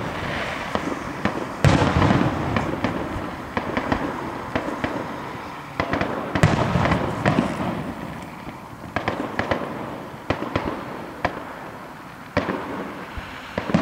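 Aerial fireworks shells bursting: a heavy bang about two seconds in and another about six seconds in, each rumbling away over a few seconds, with lighter pops and crackles between and a further bang near the end.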